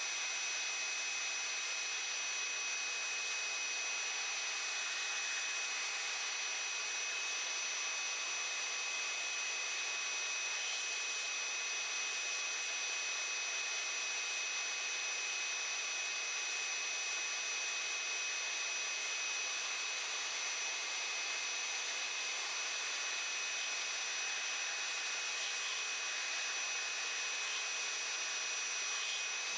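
Belt sander running steadily, sanding roughly shaped wooden gaff jaws smooth: an even abrasive hiss with a steady high motor whine.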